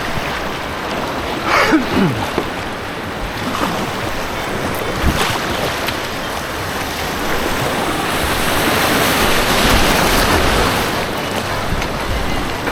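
Rushing white water with wind buffeting the microphone, a steady loud noise throughout. A short falling tone sounds about one and a half seconds in.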